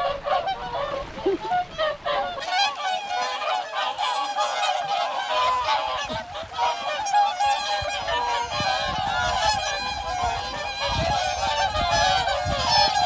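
A large flock of swans calling, a dense chorus of many overlapping calls with no let-up.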